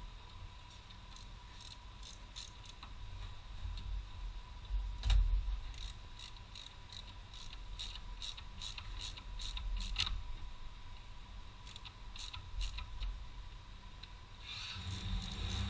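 Hand ratchet wrench clicking in short, uneven strokes, with a louder knock about five seconds in and a sharp click about ten seconds in.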